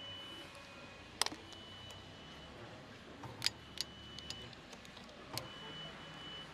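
Caterpillar skid steer's warning alarm beeping a steady high tone, about a second on and a second off, the alarm fault being diagnosed. Sharp clicks and knocks of a connector and cable being handled come in between.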